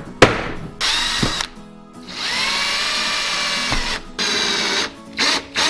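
Cordless drill run in several bursts into a PVC pipe fitting, fixing the fitting to the pipe. A sharp knock comes just after the start, then a steady whine of about a second and a half in the middle, and short quick bursts near the end.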